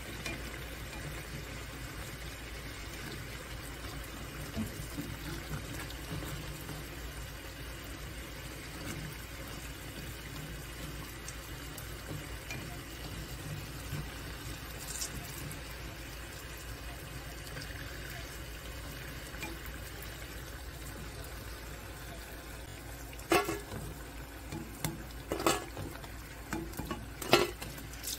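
Battered eggplant strips deep-frying in hot oil, a steady sizzle and bubble. Several sharp clicks stand out in the last five seconds.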